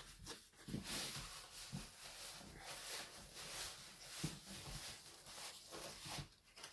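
Uneven rustling and a few soft knocks of large diamond painting canvases being handled and unrolled.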